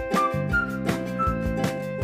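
Background music with a steady beat: an upbeat instrumental track.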